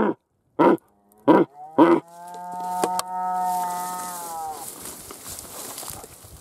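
A rutting stag calling: three short grunts about half a second apart, then one long, steady roar lasting about two and a half seconds that fades out.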